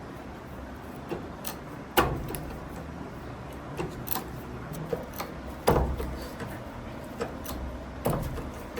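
Three loud, sharp knocks, with lighter clicks and taps between them, over a steady low hum.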